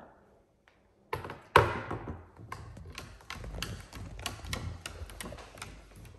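Blue-and-gold macaw's claws tapping on a marble tabletop as it walks, a run of sharp irregular taps a few a second, after one loud knock about one and a half seconds in.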